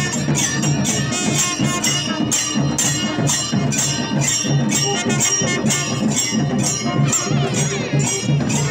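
Brass hand cymbals clashed in a fast, even beat, about three or four strokes a second, over a low rhythmic beat: temple procession music.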